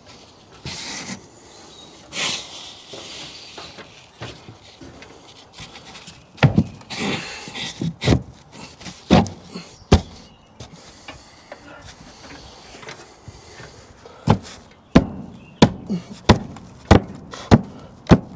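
Plywood soffit board being slid and scraped into the overhang, then knocked up into place: scattered sharp knocks midway and a run of seven evenly spaced knocks, a little under two a second, near the end.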